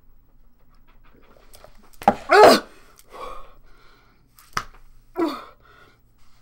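A woman gasping and groaning in disgust after gulping down a glass of salt water, with a loud groan about two seconds in and shorter breathy gasps after it.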